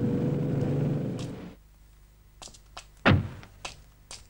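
A steady engine-like rumble with a held hum stops abruptly about a second and a half in. After it come a few light clicks and one loud, short thunk about three seconds in.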